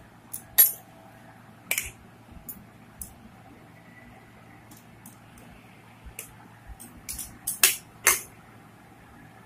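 A spoon knocking and scraping against a metal cooking pot while cooked rice is spread in a layer over the potatoes: a scattering of short sharp clicks, several close together near the end.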